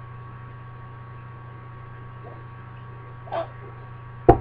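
A pet American Buff goose gives a soft call about three seconds in, then a loud, sharp honk right at the end: the upset calling of a goose left alone by her owner. A steady low electrical hum runs underneath.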